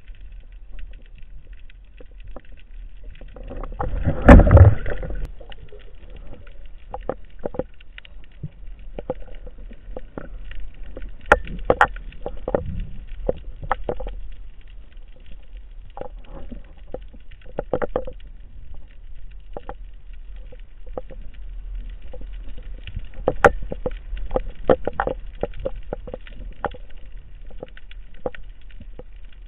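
Underwater sound picked up through a camera's waterproof housing while freediving: a steady low rumble with many irregular sharp clicks and knocks, and one loud, longer rush of sound about four seconds in.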